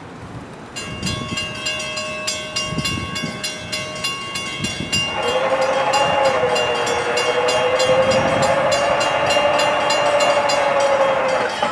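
Bell ringing in rapid, evenly spaced strokes as an NJ Transit train comes through, joined about five seconds in by the locomotive's air horn sounding one long, loud blast that stops just before the end.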